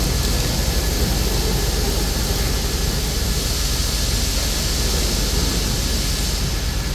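Steady machine drone and hiss in a steel fabrication shop, from a gantry double-wire submerged arc welding machine at work, with a strong low hum and a faint thin whine.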